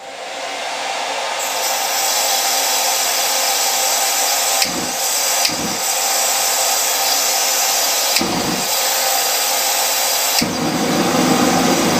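Handheld hair dryer switched on as the air blower of a homemade propane forge burner, its steady blowing coming up to speed over the first second or so, with a few brief low thumps. Near the end the burner lights and the low rumble of the propane flame joins the blowing.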